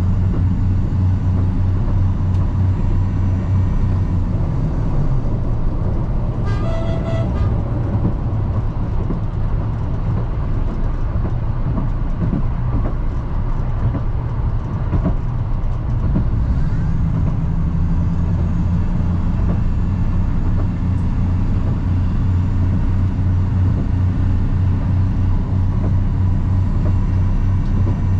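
Diesel railcar running, heard from the driver's cab: a steady low engine drone that drops back about four seconds in and comes back strong around sixteen seconds. A brief pitched tone sounds about seven seconds in.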